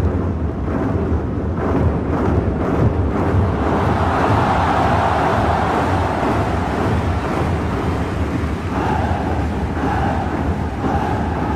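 Massed drumming by some two thousand fou drummers, a dense, continuous low pounding rumble with a few distinct strikes at first. A higher roar swells in over it about four seconds in.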